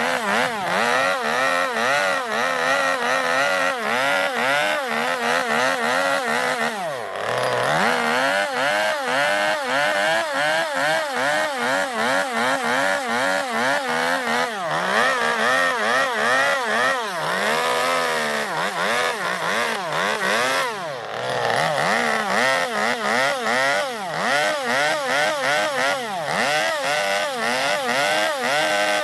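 Gasoline chainsaw running under load as it carves into zelkova wood to hollow out a bowl, the engine's revs rising and falling about twice a second as the bar works the cut. Twice, about 7 seconds and 21 seconds in, the revs drop briefly and climb again.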